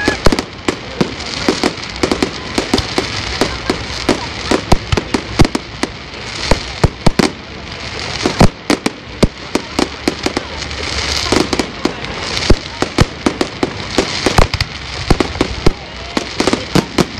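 Fireworks display: a rapid, continuous barrage of sharp bangs, several a second, with crackling between them.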